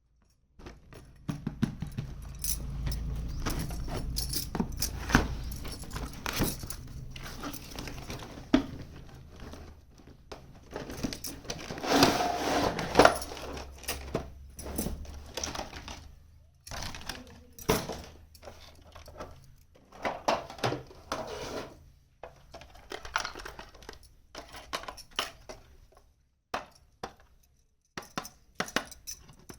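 Small pieces of a miniature toy kitchen set clicking and clinking as they are handled and set down, with a denser rustling stretch about twelve seconds in. A low hum runs under the first half.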